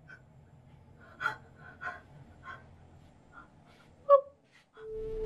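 A woman's shaky gasping breaths in shock, with a short voiced gasp about four seconds in. Soft sustained music tones begin near the end.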